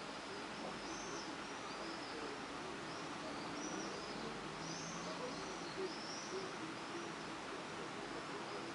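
Birds calling in the background: a string of faint, high, arching chirps with faint low notes beneath, over a steady hiss.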